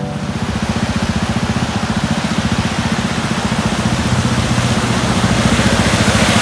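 Yamaha XT250's single-cylinder four-stroke engine running as the bike rides through a shallow river crossing, with water splashing and spraying off the wheels; the engine's rapid pulse grows steadily louder as the bike approaches.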